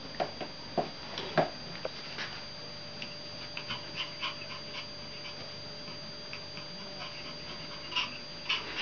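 Small fluffy spitz-type dogs playing tug-of-war with a rope toy: a few short sharp yips in the first second and a half, then light scuffling and ticking, with two more sharp sounds near the end.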